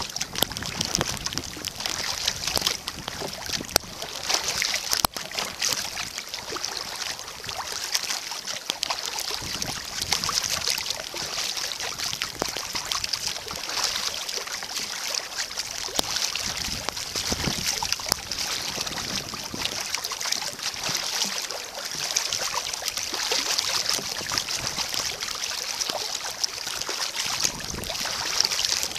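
Water splashing and trickling around a kayak as it is paddled, over a steady hiss.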